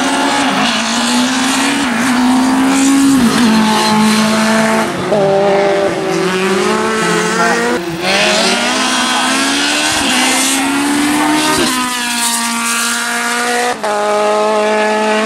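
Single-seater hillclimb racing cars running hard uphill, one after another. Each engine's pitch climbs steeply and then drops sharply at each gear change, several times over.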